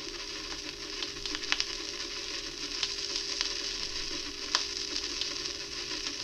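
Vinyl record surface noise as the stylus tracks the silent run-in groove before a track: a steady hiss with scattered clicks and pops.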